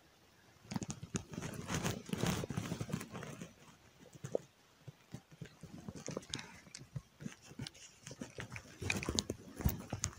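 Irregular rustling, rubbing and clicking of clothing and hands against a body-worn camera as a float rod and spinning reel are handled.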